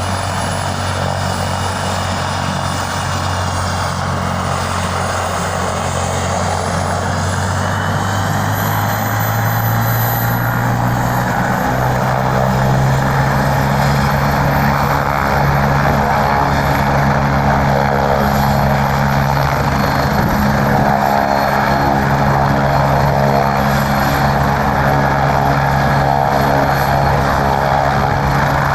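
Medical helicopter's turbine engine and rotor running loudly. The rotor drone and the high turbine whine rise in pitch about ten seconds in as power comes up, then hold steady.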